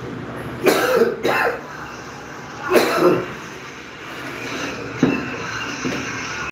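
A man coughing: two coughs close together about a second in, then another near three seconds, followed by a single sharp knock about five seconds in.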